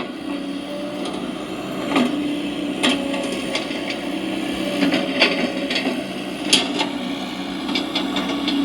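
Radio-controlled model excavator working: a steady whine from its hydraulic pump, with irregular sharp clacks and knocks from the working machine about every second or two.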